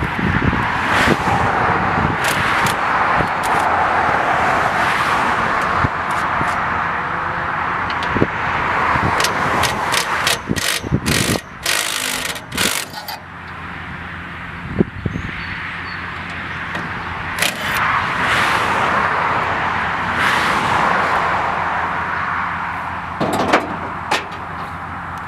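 Truck running under load while dragging a homemade hitch-mounted root-digging tool through the ground, with a steady scraping hiss. A run of sharp clicks and knocks comes about nine to thirteen seconds in, and a few single knocks follow later.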